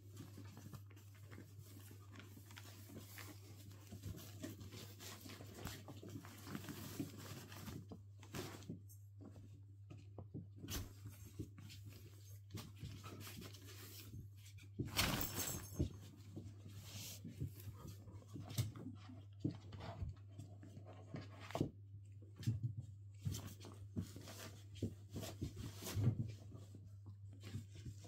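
Irish terrier puppy chewing and gnawing on a leather boot and its laces: scattered small clicks, chewing sounds and fabric rustles, with a louder rustle about fifteen seconds in, over a steady low hum.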